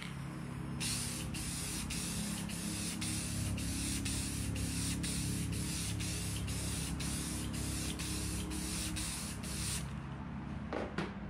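Aerosol spray can of lacquer clear coat spraying a thick wet coat in one continuous hiss, starting about a second in and stopping abruptly near the end.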